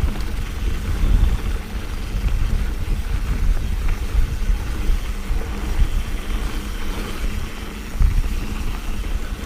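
Wind buffeting the microphone and a mountain bike's knobby tyres rumbling over a dirt trail while riding, with scattered bumps from the terrain.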